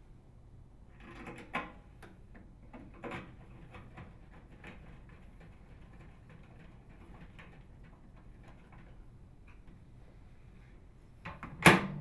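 Hand screwdriver turning a screw into the sheet-metal frame of a microwave oven's control panel, with faint scraping and ticks over the first few seconds. A sharp knock comes near the end.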